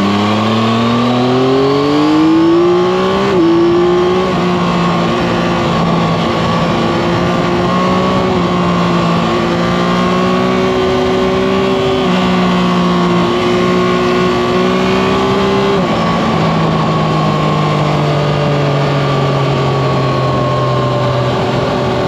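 Yamaha Tracer 9 GT's inline-three engine under way, rising in pitch as the bike accelerates for about three seconds, then holding a steady note at cruising speed and dropping slightly about sixteen seconds in. Wind and tyre noise run underneath.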